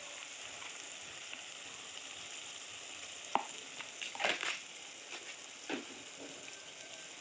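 Chopped onion and tomato frying in oil in a wok, a steady sizzle, with a few light clicks a little past the middle.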